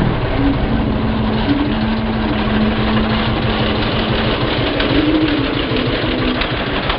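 Small minibike engine running steadily, a rapid low pulsing with a held tone through the middle.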